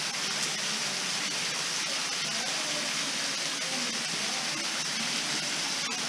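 Steady, even rush of Salmon Creek Falls, a tall, thin waterfall running at low summer flow, spilling onto rock and into the pool at its base.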